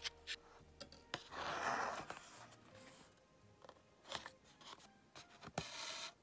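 Quiet background music, with small clicks and rasps of embroidery thread and needle being drawn through a paper card: a soft hiss about a second and a half in and a longer rasp near the end.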